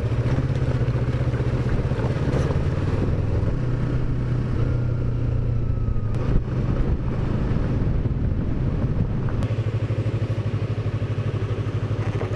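Yamaha R3's parallel-twin engine running at steady low revs while riding, with tyre and wind noise over it. There is a single sharp knock about six seconds in, and near the end the engine settles into a slower, distinctly pulsing beat.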